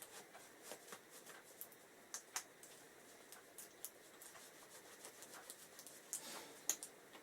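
Faint scattered ticks and light scratchy rubbing of small brake parts being cleaned by hand, with a brief louder scrape and a sharp click about six and a half seconds in.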